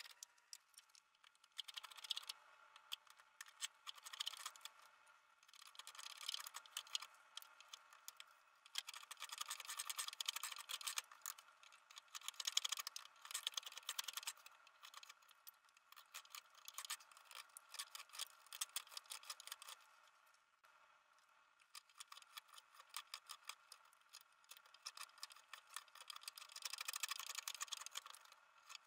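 Hook knife carving out the hollow of a green birch cup: quick short scraping cuts in runs, with brief pauses between them.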